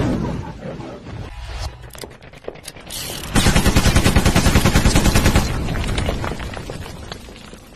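Intro sound effects: the rumble of an explosion fading away, then, a few seconds in, a loud burst of rapid machine-gun fire at about ten shots a second for about two seconds, dying away afterwards.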